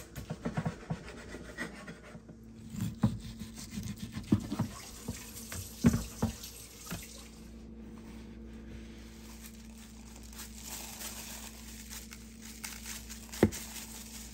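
A cleaver knocking and scraping on a wooden cutting board as raw meat is cut over a kitchen sink, with some water sounds from the sink. The knocks are irregular and loudest about six seconds in. After that there is only a faint steady hiss over a low hum, with one more knock near the end.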